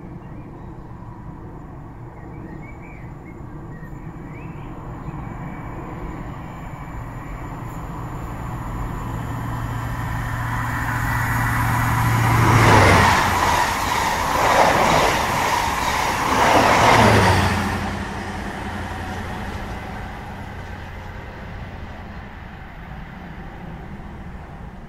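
A train approaching, rushing past at speed and fading away. It grows steadily louder, is loudest for about five seconds just past the middle with a low engine hum under the roar, then dies away.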